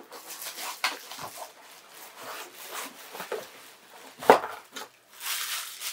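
Vacuum cleaner packaging and accessories being handled: rustling and rubbing, with one sharp knock a little over four seconds in.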